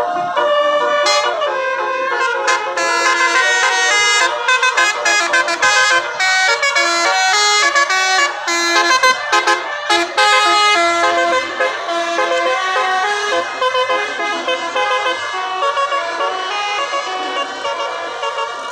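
Basuri multi-tone 'telolet' air horn playing a fast melodic run of toots, several pitches sounding together. The toots come thickest in the first half and give way to longer held notes toward the end.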